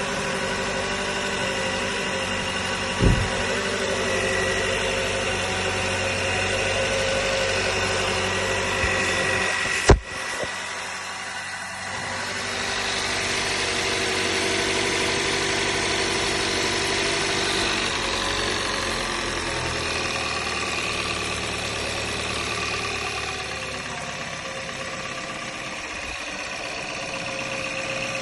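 Toyota Camry XV70's 2.5-litre four-cylinder engine running cold just after start-up, with an unusual engine noise that put a would-be buyer off the car. Two sharp knocks stand out, about 3 seconds in and a louder one about 10 seconds in.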